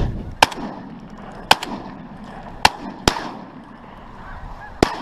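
Shotgun fired five times at a rising flock of snow geese, sharp single reports, the first three about a second apart, the last near the end, while the flock honks throughout.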